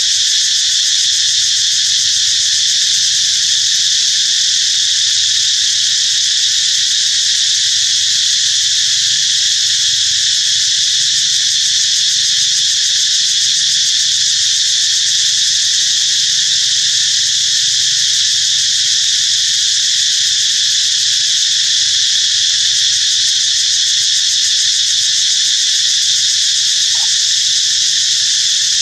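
Dense chorus of insects buzzing in a steady, high-pitched drone that never changes.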